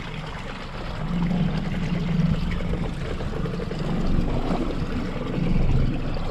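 Yamaha 115 outboard motor running slowly in gear, a steady low hum, with water washing against the hull.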